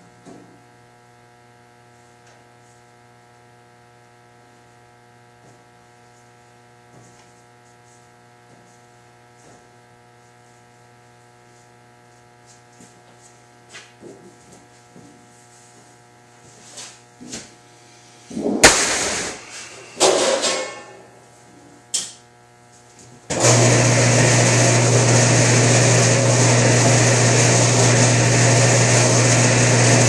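Electric sheet-metal edger (flanging machine) for duct work: a faint steady hum at first, then sheet metal clattering with a sharp clang and knocks about two-thirds of the way through, then the machine's motor starts and runs steadily and loudly near the end.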